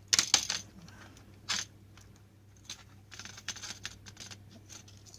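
Handling noise from small electronic parts and cables on a workbench: a quick cluster of sharp plastic clicks at the start, a single click about a second and a half in, then lighter scattered ticks and rustles over a faint low hum.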